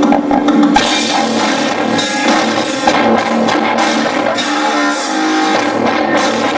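Live industrial rock band playing loud, with a drum kit and guitars in a dense mix, recorded from the crowd.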